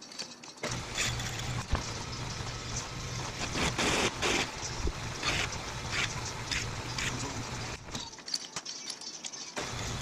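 Pillar drill's motor running while its spindle cuts into a round metal disc for a homemade friction shock, with scraping and chattering from the cut. The motor sound drops out briefly near the start and again near the end.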